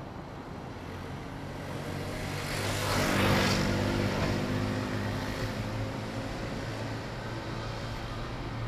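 A vehicle passing out of sight, its engine hum and hiss swelling to a peak about three seconds in, then fading away.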